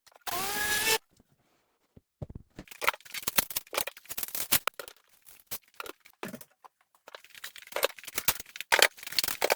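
Woodworking shop sounds. A power tool runs for under a second with a rising whine and cuts off abruptly. After a pause come irregular knocks, clacks and scrapes of wood and tools being handled.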